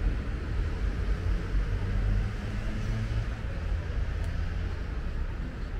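City street ambience: a steady low rumble of road traffic, with one vehicle's engine hum standing out for about a second a couple of seconds in.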